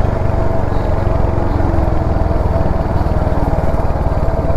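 Royal Enfield Hunter 350's single-cylinder engine running steadily while the motorcycle is ridden, with the rapid firing pulses running evenly. The rider has been complaining of a rattling 'tar tar' noise since the bike's third service, which he believes comes from inside the engine rather than the chain.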